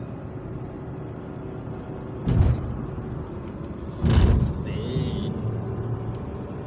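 Car cabin noise at highway speed: a steady low rumble of road and engine. Two short, loud bursts of noise come about two and four seconds in.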